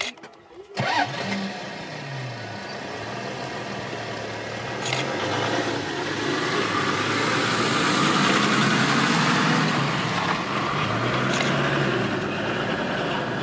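A motor vehicle's engine starts up suddenly about a second in and keeps running steadily, a little louder in the middle.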